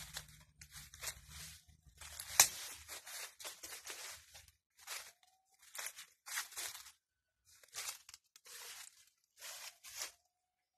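Footsteps crunching and rustling through dry leaves and undergrowth, an irregular crackle about once a second, with one sharp crack about two and a half seconds in.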